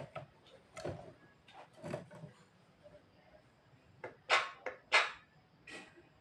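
Javan myna making short, harsh cough-like sounds, about six of them, the loudest two about four and five seconds in: mimicked coughing, like an old man's.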